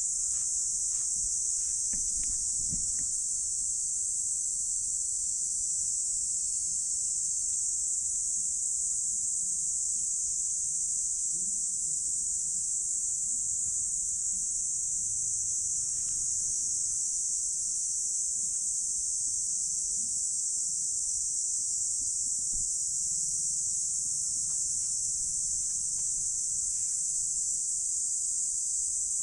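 A steady, high-pitched chorus of insects, one unbroken shrill hiss.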